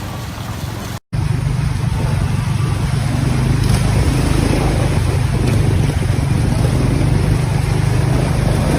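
A motor vehicle engine running steadily with a loud low hum and noise over it, after a brief break in the sound about a second in.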